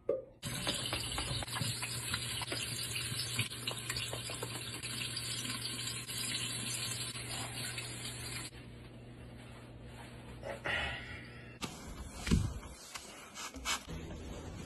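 Kitchen tap running, water splashing over hands in the sink. The sound drops and changes about two thirds of the way in, and a few short knocks and scrapes come near the end.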